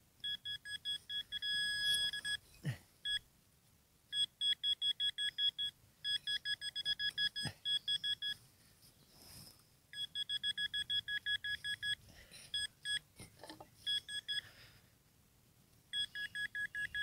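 Metal detector giving runs of rapid, high-pitched electronic beeps, about seven a second, in several bursts of one to two seconds with short pauses between. The beeping signals a buried metal target in a deep dig hole.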